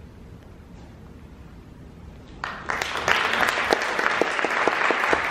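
A couple of seconds of hushed hall, then audience applause breaks out about halfway through and carries on as steady clapping, with individual claps standing out.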